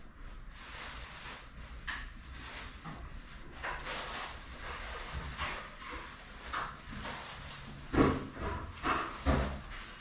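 Irregular steps and taps on a tiled floor over a soft hiss, with the loudest knocks about eight and nine seconds in.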